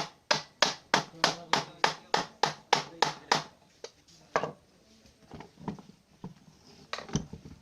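Hammer blows on metal, evenly spaced at about three a second and each ringing briefly, then after about three and a half seconds a few slower, weaker taps.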